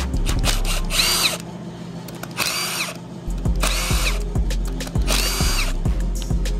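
Milwaukee M18 cordless driver spinning out the cylinder head cover bolts on a Rotax 500 engine in four short bursts, its motor whine rising and falling with each bolt. Background music runs underneath.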